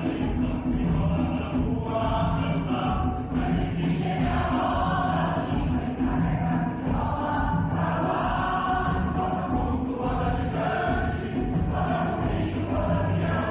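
Mixed choir singing a musical-theatre song with a steady low rhythmic part underneath.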